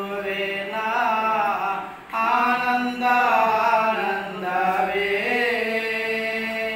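Two men singing a Kannada Christian song a cappella, without instruments, in long held phrases with a short break about two seconds in.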